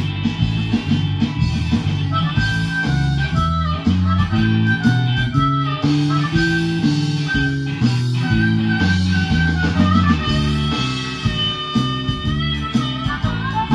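Instrumental break in a blues-rock song: a harmonica solo with held, bending notes over a guitar accompaniment.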